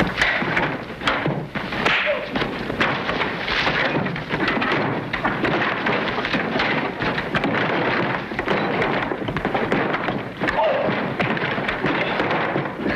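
Fistfight sound effects: scuffling, thuds of blows and a couple of short grunts over a continuous crackling rush of noise.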